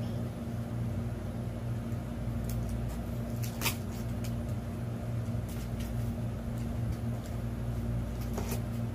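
Window-type air conditioner running with a steady low hum, with a few light clicks and rustles from the box being handled, the sharpest a little over a third of the way in.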